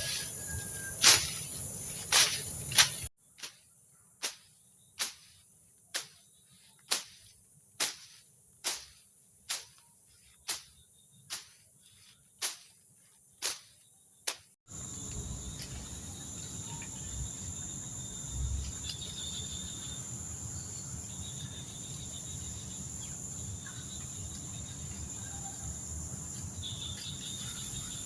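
Night insects, crickets, chirring steadily at a high pitch. Through the first half comes a regular series of sharp knocks, a little more than one a second, which stop about halfway through.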